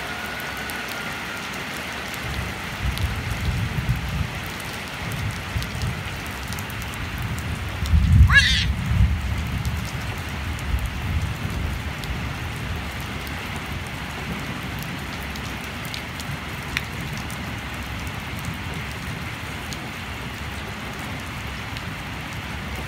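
Steady rain falling, with low rumbling bursts off and on. The loudest rumble comes about eight seconds in, with a brief wavering high sound.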